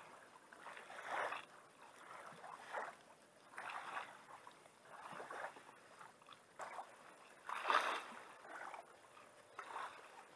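A person shifting about in a plastic kayak and climbing out onto the shore: soft, irregular rustling and scraping swishes, about one every second or so.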